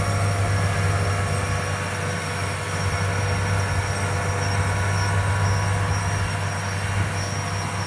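New Holland T8 tractor's six-cylinder diesel engine running steadily while pulling a 20-row planter: an even, deep drone with a thin high whine over it.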